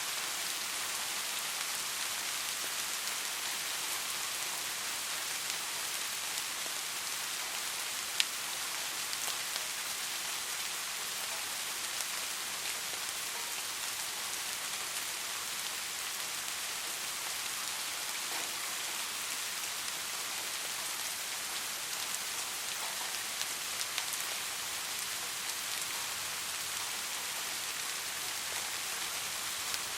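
Soft rain falling steadily, an even hiss with scattered drop ticks and one sharper drop about eight seconds in.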